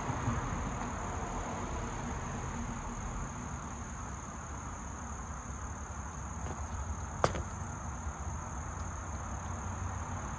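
Insects shrilling steadily in one constant high tone, over a low outdoor rumble. A single sharp click about seven seconds in.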